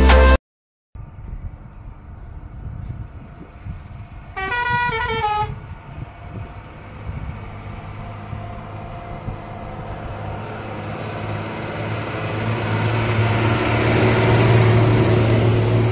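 Loaded truck's engine running as it climbs hairpin bends. A vehicle horn honks once, about a second long and dropping in pitch as it ends. The engine grows steadily louder over the second half.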